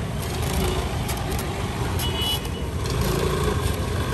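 Busy street traffic noise: motor scooters and other vehicles running in a steady low rumble.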